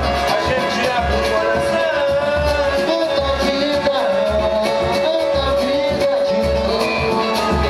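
Live samba played by a small band, with a singer over a plucked string instrument and hand drums. A low drum beats steadily about once a second.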